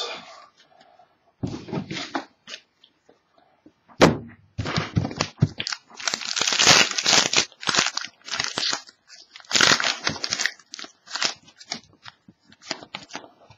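Trading-card pack wrapper crinkling and tearing as it is ripped open by hand. There is a sharp crack about four seconds in, then dense crinkling for several seconds.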